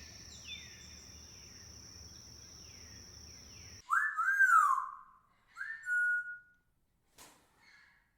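Bird calls: repeated short falling calls over a steady high-pitched buzz, then an abrupt change to louder, clear whistled bird calls, with a rising-and-falling whistle about four seconds in and a shorter whistle ending in a held note about two seconds later.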